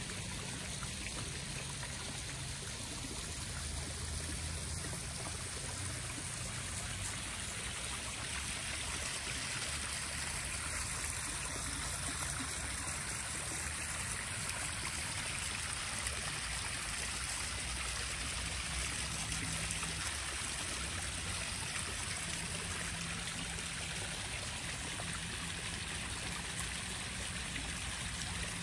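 Small stacked-stone garden pond waterfall running steadily into a backyard koi pond, a continuous trickling splash of falling water.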